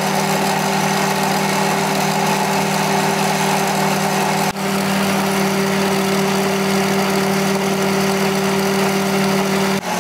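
Kenwood stand mixer running steadily at a raised speed, its whisk beating egg whites in the steel bowl: a steady motor hum with a whirring sound over it. The sound drops out for an instant about four and a half seconds in, and its hum shifts slightly near the end.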